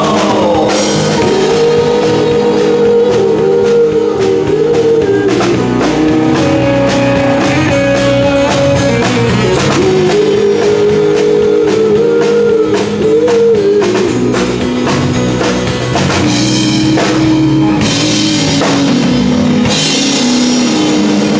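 Rock band playing: a drum kit and electric guitar, with a held melodic line that bends up and down in pitch.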